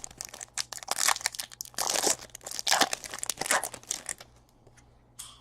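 Trading-card pack wrapper crinkling and tearing as a pack is opened and handled, a quick run of rustles and clicks that stops about four and a half seconds in.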